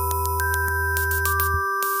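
Minimal glitch electronic music: held metallic tones layered over a low bass tone, peppered with sharp digital clicks and short bursts of hiss. The bass cuts off about one and a half seconds in, while new higher tones enter partway through.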